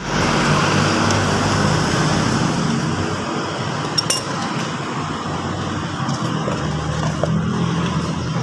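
A motor vehicle engine running steadily, with a sharp metallic clink about four seconds in.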